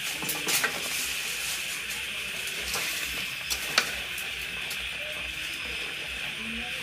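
Chicken pieces going into a wok of gravy and sizzling steadily, with a few sharp clicks of a metal spatula against the pan.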